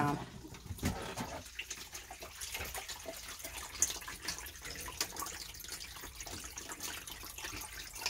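Rinse water draining by gravity out of a twin-tub portable washing machine's drain hose, running steadily onto a shower floor.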